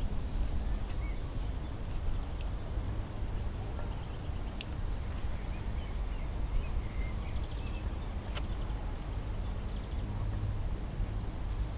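Steady low rumble of wind on the microphone in an open field, with faint bird chirps and a few sharp clicks scattered through it.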